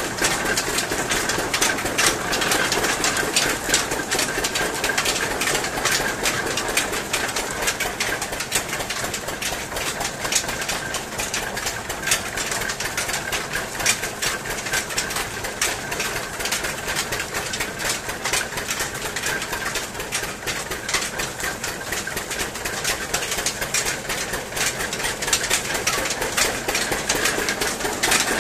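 Belt-driven vertical roller sugarcane crusher running while crushing cane: a fast, continuous clatter of gears and rollers over a steady whine from the drive.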